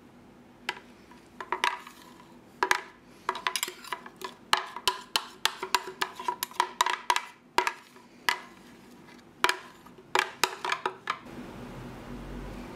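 Hard knocks against a kitchen container while thick yogurt marinade is poured over raw chicken: a long run of sharp, irregular knocks in clusters, each with a short ringing tone. They stop near the end, leaving a low steady hum.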